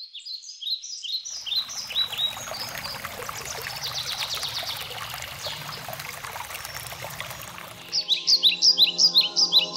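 Small birds chirping in quick runs of short falling chirps. From about a second in, water trickles and splashes over stones. About eight seconds in the water stops suddenly, and soft sustained music chords come in under louder chirping.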